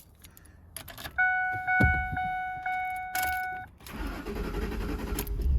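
Pickup truck's key-in-ignition warning chime pulsing about twice a second after a jingle of keys. Then the starter cranks the engine for about a second and a half on a freshly installed battery. It turns over strongly but does not fire, which the owner puts down to fuel not yet reaching the engine after sitting a long time.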